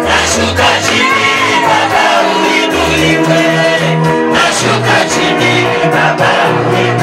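Live praise and worship music: singing voices over sustained chords, a moving bass line and drums, with occasional shouts.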